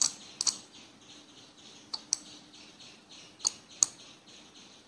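A 5 V relay on a 4-channel relay module clicks sharply, about seven times and mostly in quick pairs, as it switches on and off while two jumper wires are shorted together to trigger it.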